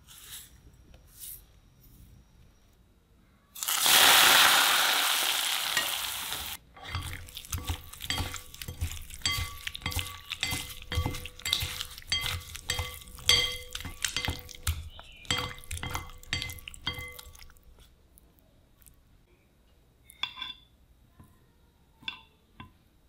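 Hot oil poured over garlic and chili in a bowl sizzles loudly for about three seconds, fading as it cools. Then a spoon stirs the sauce, clinking and ringing against the bowl over and over for about ten seconds, with a few faint clinks near the end.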